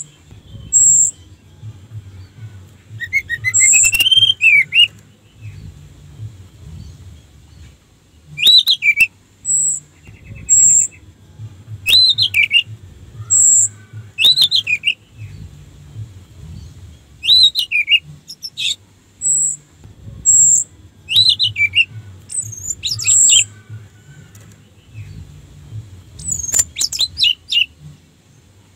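Orange-headed thrush singing: short, clear whistled phrases with quick swoops in pitch, about eight of them a few seconds apart. Brief high pips repeat between the phrases.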